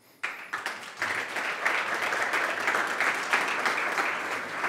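Audience applauding, breaking out suddenly just after the start and then holding steady.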